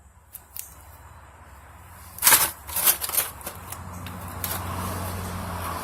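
A few small clicks, then a cluster of loud, sharp knocks and clacks about two to three seconds in, typical of tools or parts being handled. A low steady hum builds up after them.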